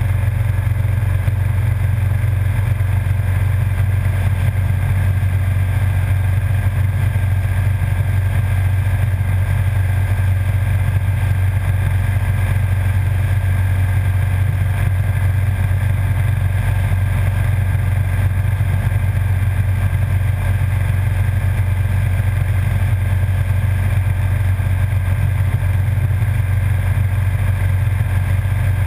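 Motorcycle cruising at a steady speed: a constant low engine drone under even wind and road noise, with no change in pitch or loudness.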